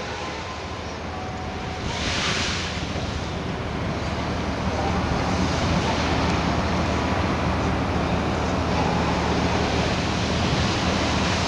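Diesel engine of a Liebherr 954 scrap-handling machine running steadily as a low hum under a broad rush of wind on the microphone, with a brief swell of hiss about two seconds in.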